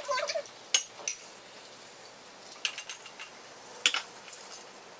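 Scattered clinks and taps of cutlery against bowls and plates while eating, a few separate strikes with short gaps between them.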